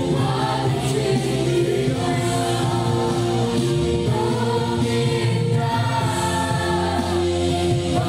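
Live Christian worship song: a man and a woman sing the lead into microphones over a band with drum kit and electric guitar, and the congregation sings along as a choir.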